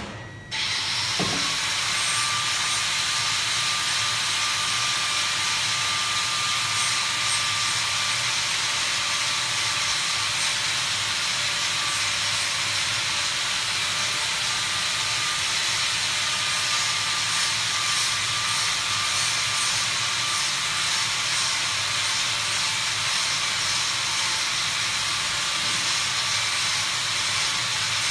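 Steady hiss of factory machinery with a thin, steady high whine running through it, starting abruptly about half a second in.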